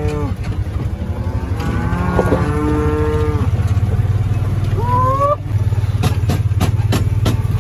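Cattle mooing over the steady low hum of a utility vehicle's idling engine. One long moo comes about two seconds in, then a shorter call rising in pitch near the middle, and a few sharp knocks follow near the end.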